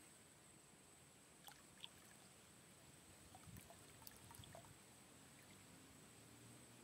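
Faint splash and trickle of pond water as a small clear plastic box is dipped in and tipped out, about three to four and a half seconds in.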